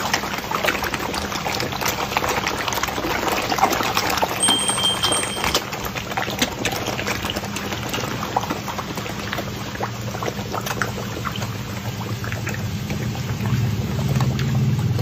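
Koi crowding at the pond surface around a hand, splashing and churning the water in a dense, irregular patter. A low hum grows stronger toward the end.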